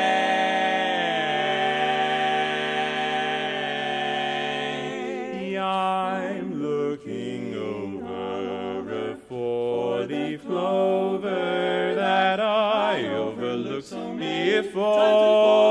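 Male barbershop quartet singing a cappella in close four-part harmony. A long chord is held for about five seconds, then comes a quick rhythmic passage of short sung syllables, ending on another held chord.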